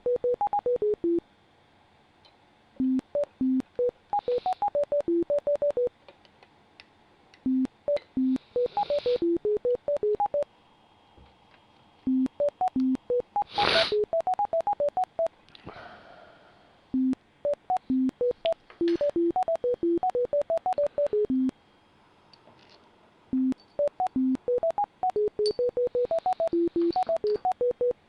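ISHA CATS Pro NLS bioresonance software scanning, its computer sound playing quick runs of short electronic beeps that jump between pitches, each run a few seconds long with a pause of a second or two between, repeating. A brief hiss comes about halfway through.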